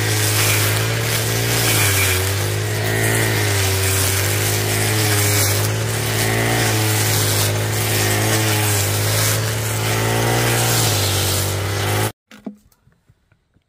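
Petrol brush cutter running at high speed while cutting through ferns and weeds, its engine note dipping and recovering every second or two as the blade bites into the growth. The sound cuts off suddenly about twelve seconds in, leaving only a few faint clicks.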